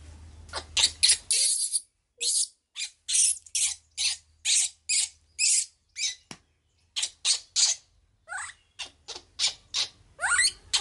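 Baby monkey giving a quick series of short, high-pitched squeaking calls, two or three a second, some rising in pitch, with a brief pause past the middle.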